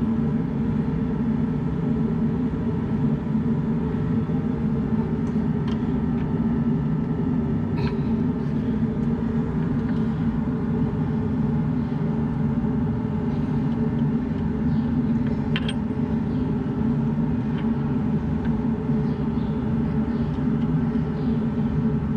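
Shop heater running with a steady, even drone. A few faint light clicks of tools or parts are heard over it, about six, eight and sixteen seconds in.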